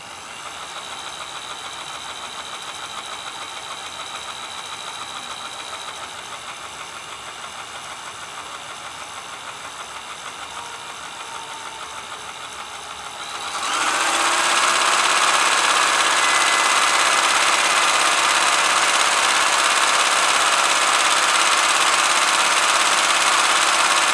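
Kenmore 158.1030 vintage sewing machine running on its electric motor, driven from the foot controller, with its freshly oiled underside mechanism turning steadily. The running grows markedly louder about thirteen seconds in and then holds steady.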